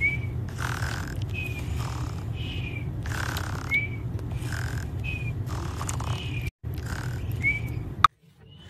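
Cartoon snoring sound effect of the Snapchat augmented-reality sleeping mice: breathy snores, each with a short falling whistle, about one a second over a steady low hum. The snoring stops with a sharp click near the end.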